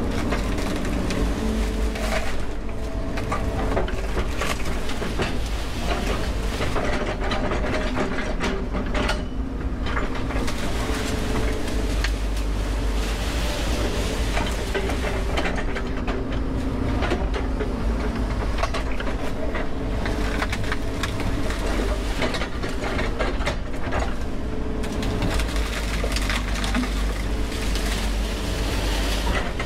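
Volvo EC140 excavator's diesel engine running steadily under load, with frequent clanks and knocks from the machine's bucket and tracks as it works through rock.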